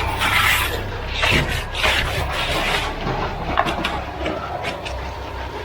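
Concrete mixer truck running steadily during a pour, with rough washes of noise from concrete sliding and being spread. It is loudest in the first three seconds, with a few sharp knocks.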